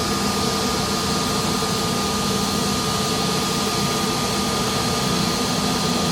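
Jet airliner engines running steadily, a constant whine over an even rushing noise.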